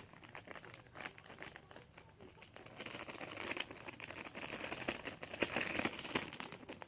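Plastic slime packaging crinkling and clicking as it is handled, with a denser run of crinkling from about three to six seconds in.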